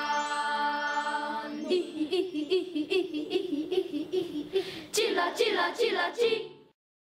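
Children's choir singing unaccompanied: a long held chord, then, about two seconds in, a quicker rhythmic passage with crisp accents, cut off abruptly near the end.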